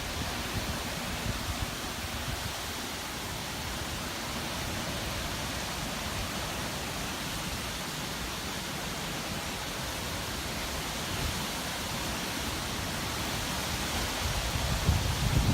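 Hurricane-force wind: a steady, even rushing noise, with low gusts starting to buffet the microphone near the end.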